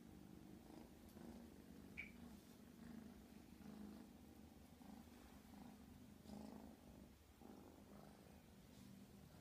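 Kitten purring softly, a low rumble that swells and fades with each breath. A brief high chirp about two seconds in.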